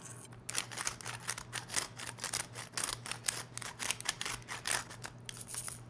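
Salt and pepper sprinkled by hand onto raw beef short ribs on a plate: a run of quick, irregular crisp ticks, several a second, over a faint steady hum.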